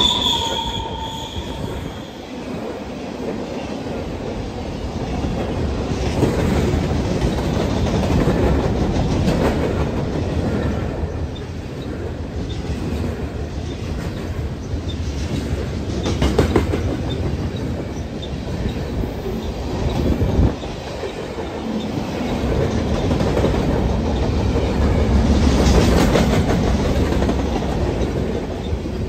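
A train rolling past: a steady rumble of cars and wheels on the rails, with clicking from the rail joints and a brief wheel squeal at the start.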